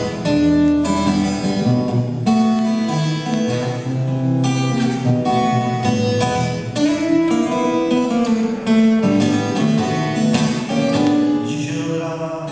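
Acoustic guitar played solo: an instrumental passage of picked notes and chords, with no singing.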